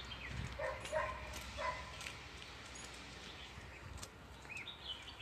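Small dog giving three short, quiet yips in the first two seconds.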